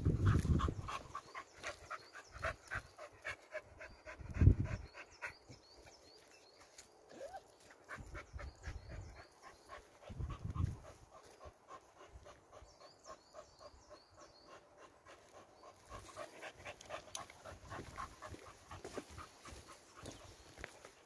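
A dog panting rapidly, about four breaths a second, in two spells with a quieter stretch between.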